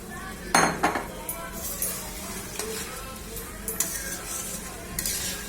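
A metal spoon stirring and scraping in a pan of sizzling mutton and potato curry, with a few sharp knocks against the pan, the loudest about half a second in.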